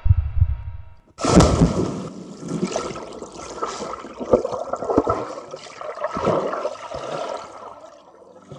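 A low heartbeat-like thumping for about the first second, then a sudden splash of a body plunging into a swimming pool, followed by steady underwater bubbling and churning water that dies down near the end.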